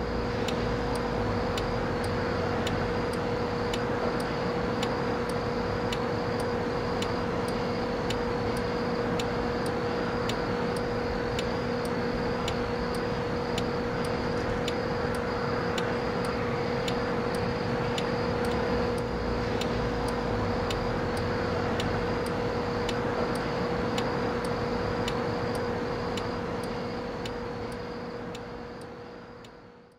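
A steady mechanical hum with a regular sharp tick a little more than once a second, fading slightly near the end.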